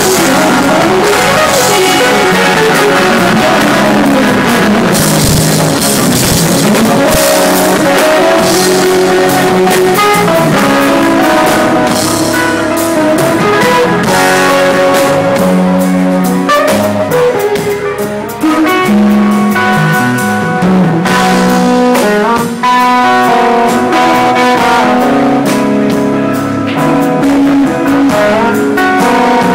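A band playing a rock-blues jam: guitar lines with sliding, bending notes over a drum kit.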